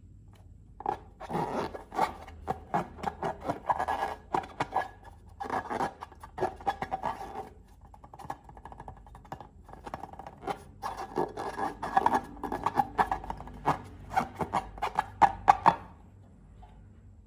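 Sticky slime being handled and worked, making runs of wet clicking and crackling in three spells with quieter pauses between them.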